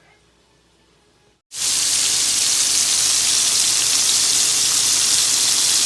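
Faint room tone, then about a second and a half in, a sudden cut to scallops frying in hot olive oil in a pan: a loud, steady sizzle.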